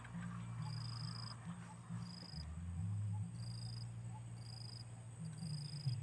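Insects chirping in short, high-pitched, evenly repeated calls about once a second, over a steady low hum.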